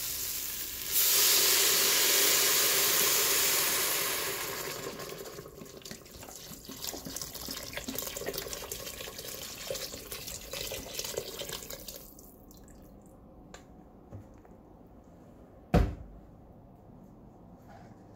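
Water poured from a pitcher into an Instant Pot's steel inner pot over freshly sautéed vegetables. It rushes loudly for a few seconds, then splashes more quietly until it stops about twelve seconds in. Near the end there is a single sharp knock.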